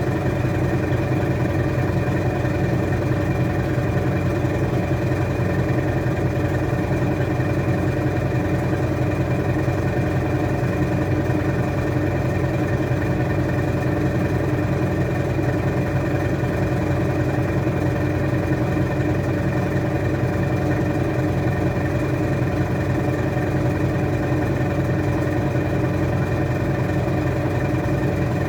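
Washing machine running steadily: a constant motor hum with a thin high whine, holding one speed with no pauses.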